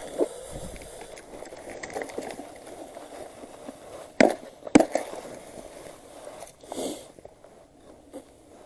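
Handling fishing tackle while changing a jig lure: rustling and small clicks, with two sharp louder clicks about half a second apart near the middle.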